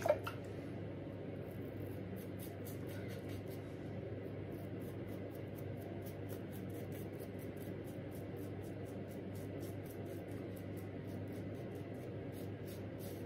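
Home Like Shaving Start safety razor with a Voskhod blade scraping through lathered stubble on the chin and neck, a long run of short, scratchy strokes coming a few times a second.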